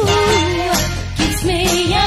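Background music: a song with a wavering melody line over a band with bass and drums.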